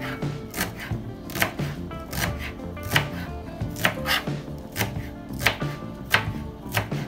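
Kitchen knife chopping fresh green herbs on a plastic cutting board: sharp knocks of the blade on the board, irregular at about two a second, over soft background music.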